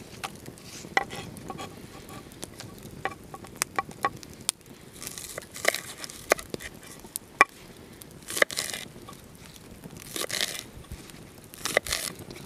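Knife chopping green onions on a wooden cutting board: crisp crunches as the blade goes through the stalks, with irregular sharp taps of the blade on the board.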